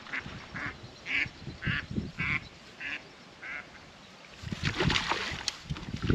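A duck quacking, a run of about seven quacks at roughly two a second. Near the end comes a rush of splashing noise as the landing net goes into the water.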